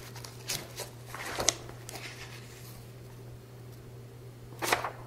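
Pages of a book and loose papers being handled and turned, a few short crisp rustles spread through, over a steady low hum.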